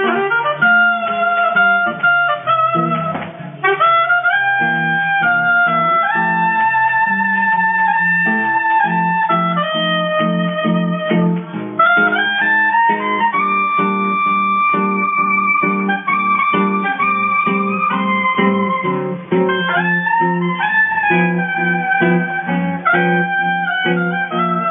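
Oboe playing a sustained melody with several rising runs over acoustic guitar accompaniment.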